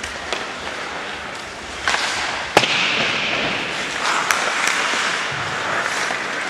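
Ice hockey play: a steady hiss of skate blades on the ice, cut by sharp cracks of sticks striking the puck. The loudest crack comes about two and a half seconds in, with a couple of lighter clicks later.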